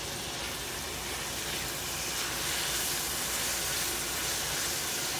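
Kimchi and sliced Chinese sausage sizzling in a stainless steel sauté pan as they are stirred with a spatula: a steady frying hiss that swells a little in the middle.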